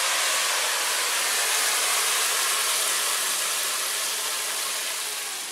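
Steady hiss from cooking on a gas stove, fading slowly near the end.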